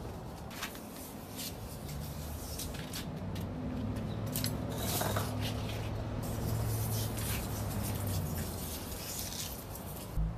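Compression tank sprayer's wand spraying insecticide in short hissing bursts, with a low steady hum underneath.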